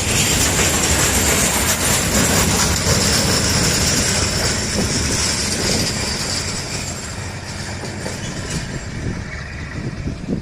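Freight train of flat wagons hauled by a Medway diesel locomotive rolling past: wheels rumbling and clattering on the rails, with a high squeal above. It grows fainter in the second half as the train draws away.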